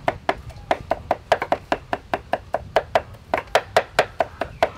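Cleavers chopping on thick round wooden chopping blocks, a quick steady run of knocks, about five a second, as garlic is minced.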